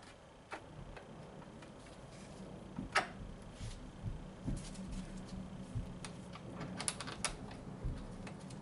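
Scattered light clicks and knocks, irregular, with a sharper one about three seconds in and a quick cluster near the end, over a faint steady hum.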